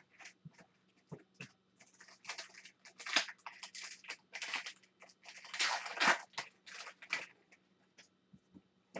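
Trading-card packs being handled: a wrapper crinkling and tearing and cards sliding and clicking against each other, in short rustling bursts that are densest in the middle.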